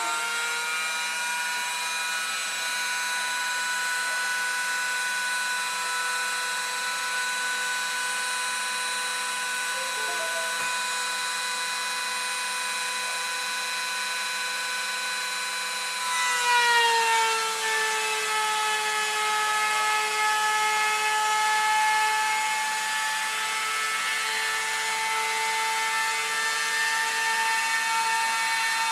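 Rotary tool clamped as the spindle of a desktop CNC router, whining steadily as its bit cuts into a wooden board; about sixteen seconds in its pitch drops and it gets louder.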